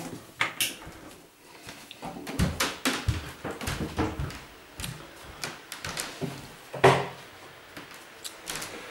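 Irregular knocks and clicks of household objects being handled, with one louder knock about seven seconds in.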